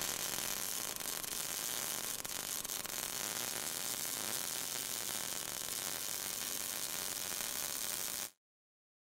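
MIG welding arc with a steady crackling hiss that cuts off suddenly near the end.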